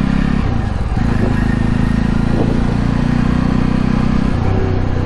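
Jawa 42's single-cylinder engine and exhaust pulling as the motorcycle speeds up in town. The note breaks briefly about half a second in and shifts pitch again near the end.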